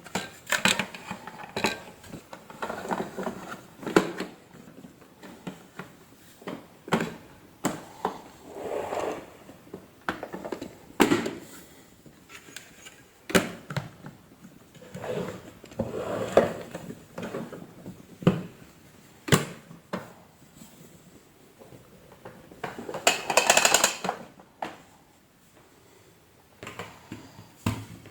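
Handling noises: scattered clicks, knocks and clatters of hard objects being moved and set down, with a longer scraping rustle about 23 seconds in.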